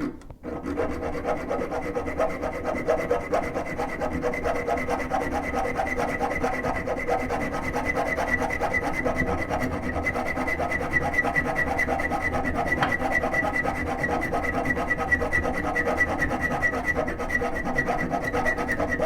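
Hacksaw cutting through a brass toilet closet bolt just above its nut, in rapid, steady back-and-forth strokes with a metallic ringing tone.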